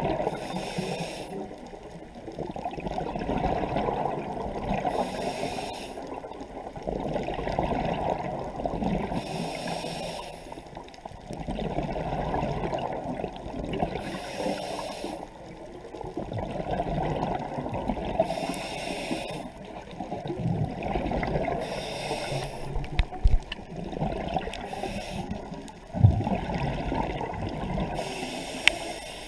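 Scuba diver breathing through a regulator underwater, heard from the camera. Each inhale is a short hiss, about every four seconds, followed by the bubbling rumble of the exhaled air. There are a few sharp knocks near the end.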